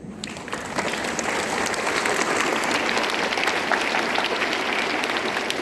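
An audience of students clapping, starting just after a closing "thank you" and swelling within about a second into steady applause.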